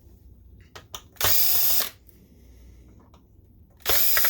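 Cordless power driver running in two short bursts of about half a second each, roughly two and a half seconds apart, with a few light clicks just before the first.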